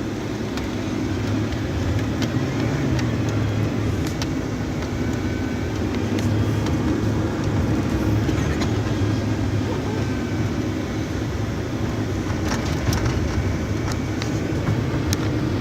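Chevy van driving on snowy roads, heard from inside the cab: a steady low drone of engine and road noise, with a few faint ticks.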